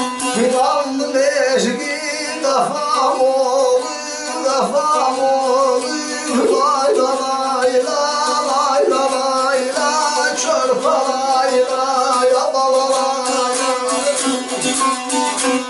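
A man singing an Azerbaijani ashiq song while strumming a saz, a long-necked lute, with a steady drone sounding under his melody.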